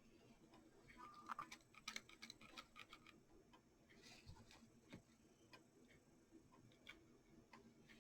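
Faint, irregular small clicks and taps with light rustling, from small decorative flowers being handled and placed on a clock face.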